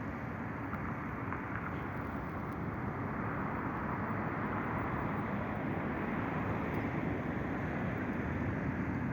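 Distant, steady roar of a Boeing 737-800's CFM56-7B jet engines as the airliner climbs away after takeoff, swelling slightly toward the end.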